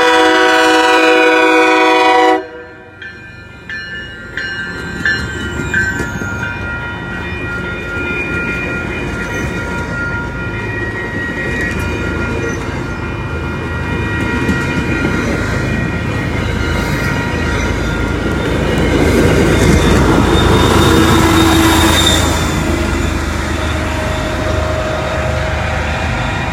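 MBTA train horn sounding a loud multi-note chord for about two seconds, cut off sharply, followed by the train running past with rumble and wheel clatter that builds to its loudest near the end.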